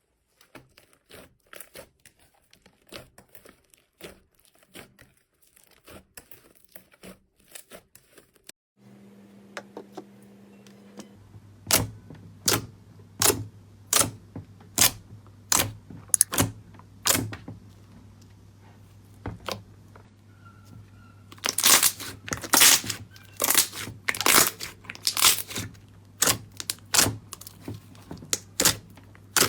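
Slime being squeezed and pressed by hand, first with faint sticky clicks. About nine seconds in, a steady low hum starts, and the slime then gives loud, sharp crackling snaps, about one or two a second, coming thicker and louder after about twenty seconds.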